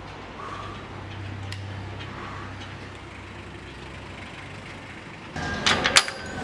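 A low steady hum like a vehicle motor runs in the background. About five seconds in, a red metal gate clanks and rattles sharply for under a second as a hand works it through the bars.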